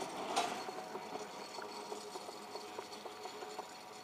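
Electric tram running away along its track: a faint, irregular rattle of short ticks and brief squeaks from the wheels on the rails, with one sharper click about half a second in.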